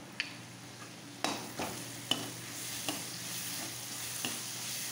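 Onion and spice paste sizzling in hot oil in a metal kadai while a perforated steel slotted spoon stirs it, scraping and clicking against the pan. The sizzle grows louder about a second in, once the stirring starts.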